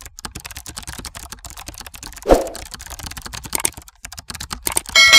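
Keyboard-typing sound effect: a rapid run of keystroke clicks, with one louder knock about two seconds in. A bell ding starts right at the end.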